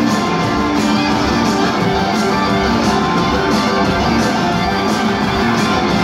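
Rock band playing live through a PA: electric guitars over drums with a steady beat, heard from within the crowd.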